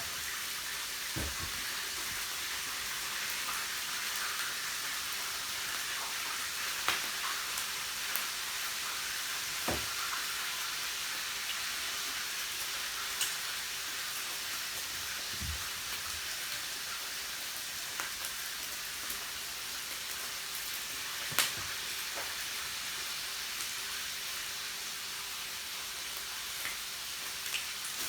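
Meat sizzling steadily on a yakiniku grill, with a clear hiss and a few short clicks and knocks every few seconds.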